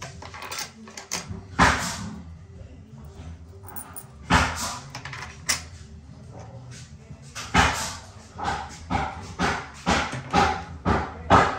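Plastic toilet seat and lid knocking and clicking against the china bowl and hinge fittings as it is fitted and handled. Sharp knocks come at a few separate moments, then a quick run of short sounds about two a second near the end.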